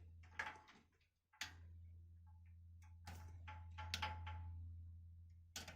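Faint clicks and knocks of a desktop computer being handled, over a low steady hum. The machine does not start up, because it is not plugged in.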